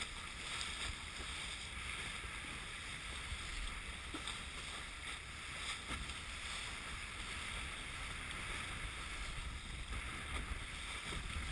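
Sailboat under way: wind buffeting the microphone as a steady low rumble, over a constant hiss of water along the hull and a few faint ticks.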